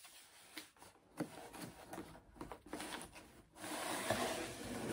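Cardboard box being handled and opened by hand: light scuffs and taps, then from about three and a half seconds in a steady rustling, scraping noise of the box and its wrapping that grows louder toward the end.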